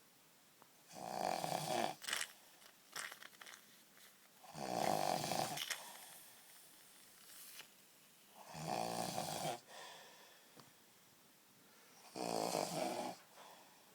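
A person snoring: four long, rattling snores, one about every three and a half to four seconds, with faint short clicks between them.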